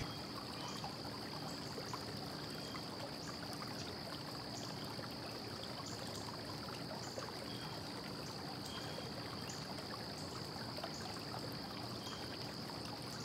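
Steady low hiss of room tone with a faint, constant high-pitched whine running under it.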